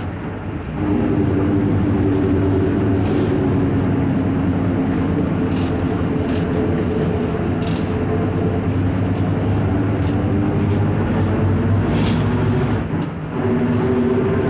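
Mercedes-Benz OF-1721 city bus under way, heard from on board: the drivetrain drones with a steady growl from the rear differential. The sound drops off briefly near the start and again near the end, then picks back up.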